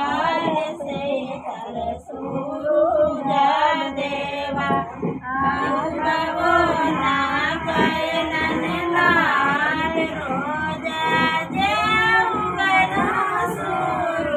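Women's voices singing, with long held notes that bend in pitch.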